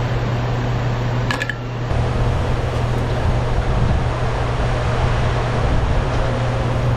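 Steady hum and rushing air of a running fan, with a brief metallic click about a second and a half in.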